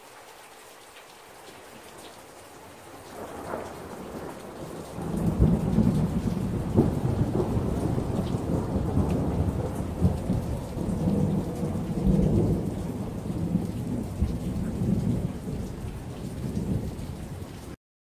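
Low road and wind rumble heard from inside a car moving at highway speed across a bridge deck. It builds over the first few seconds, stays loud with irregular thumps, and cuts off suddenly near the end.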